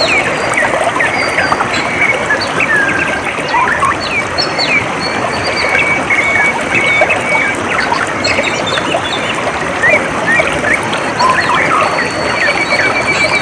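Water flowing steadily, with many small birds chirping and whistling over it in short, quick calls; near the end a fast, even trill sets in.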